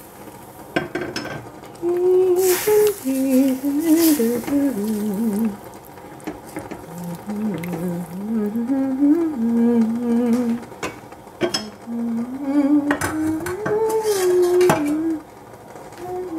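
A person humming a wordless tune that wanders up and down in pitch, pausing briefly a couple of times, while a wooden spatula stirs and knocks against a stainless steel saucepan of soup.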